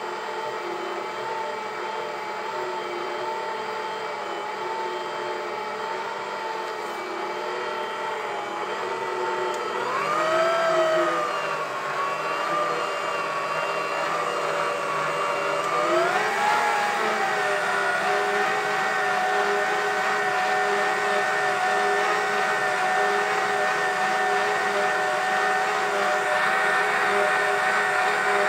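Karaca Mastermaid Chef Pro 1750 W stand mixer running, its motor whine steady and turning dry flour in the bowl at the start of kneading dough. Its pitch glides up to a higher, louder speed about ten seconds in and again about six seconds later.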